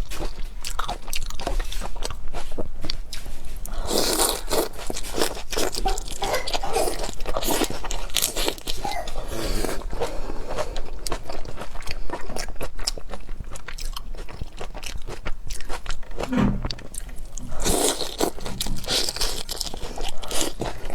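Close-miked eating: a person biting and chewing seafood, with dense crunching clicks throughout and louder stretches of chewing about four seconds in and again near the end.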